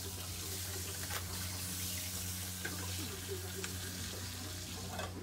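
Thick slices of loin ham sizzling in oil in a small iron skillet over a gas flame, with a steady low hum underneath. Sharp clicks of metal against the pan about a second in and near the end.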